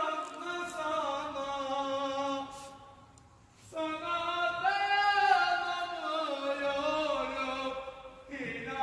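A Ramadan drummer's powerful male voice singing a chant in long, drawn-out held notes that slide slowly in pitch, with a short breath pause about three seconds in.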